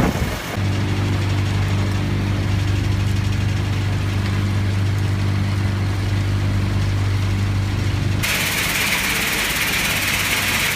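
Crushing and screening plant machinery running with a strong, steady hum. About eight seconds in, the hum gives way abruptly to a steady rushing hiss as the view reaches crushed stone moving on a conveyor belt.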